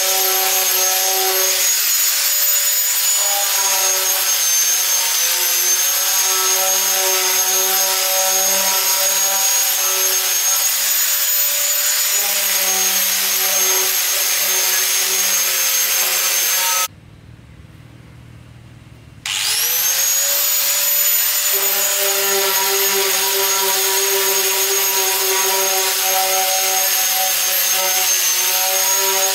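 Handheld electric angle grinder running under load against the rusty sheet-steel of a hopper: a steady high motor whine over the scrape of the disc on metal. About 17 seconds in it cuts off for two seconds, then spins back up to speed and carries on grinding.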